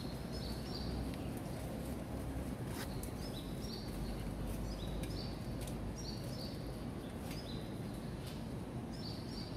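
A small bird calling over and over, short high notes that step up in pitch, about once a second, over a steady outdoor background hum.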